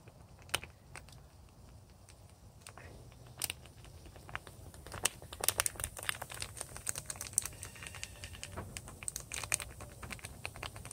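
Plastic bag crinkling and ticking as baking soda is shaken and tapped out of it: scattered light clicks, growing busier about halfway through.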